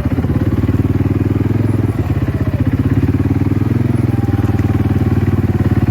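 Small vehicle engine running steadily at low speed, with a fast, even firing pulse.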